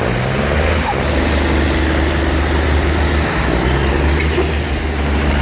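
A heavy machine's engine running steadily, a loud, even low hum.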